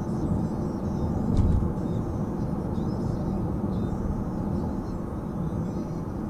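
Car driving at highway speed, heard from inside the cabin: a steady low rumble of road and tyre noise, with a brief louder low swell about a second and a half in.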